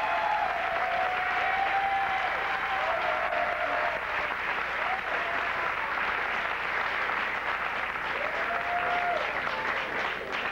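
Crowd applauding and cheering, with a few drawn-out yells over the clapping.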